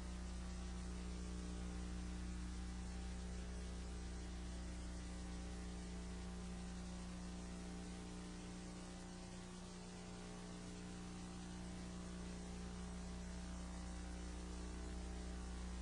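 Steady electrical mains hum with a faint hiss running under it.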